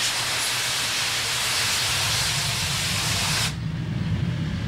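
Loud, steady hissing rush at a Hawker Hunter jet on the ground being readied for engine start. It cuts off suddenly about three and a half seconds in, leaving a low rumbling drone.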